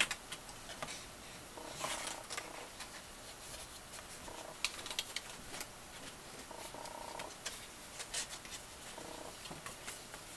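Stiff cardstock box panels being handled and pressed into place: light rustles and small taps of card against the mat. Several short stretches of a low buzzing hum come and go through it.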